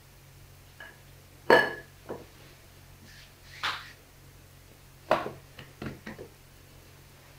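Handling a sheet of rolled-out dough on a floured worktop: a few sharp knocks and thumps, the loudest about a second and a half in and again about five seconds in, with smaller ones after it.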